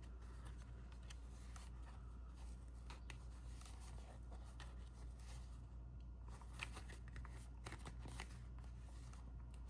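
Faint handling of a cardstock pop-up card: light rustles and small clicks of paper, over a low steady hum.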